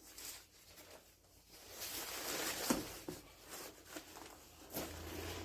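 Irregular rustling and handling noises of prop parts being moved about, with a sharp click a little under three seconds in.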